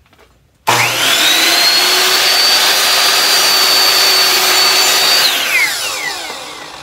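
Ryobi 10-inch sliding compound miter saw's 15-amp motor switched on under a second in, whining up to full speed almost at once and running steady while the blade is lowered through a wooden board. A little past the middle the trigger is released and the blade spins down with a falling whine.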